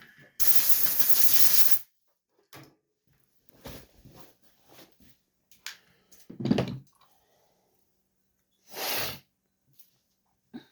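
Loud blasts of hissing air: one lasting over a second, starting about half a second in, and a shorter one near the end, with scattered knocks and clatter between them.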